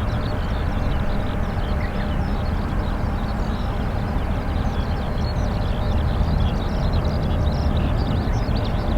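Steady low rumble of a Boeing 737-800 airliner's jet engines heard from a distance, with a faint steady whine over it. Many short high chirps run over it throughout.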